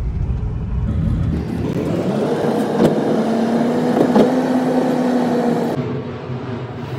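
A car running, with a low rumble that builds over the first couple of seconds and a steady drone that eases off about a second before the end. Two short knocks in the middle.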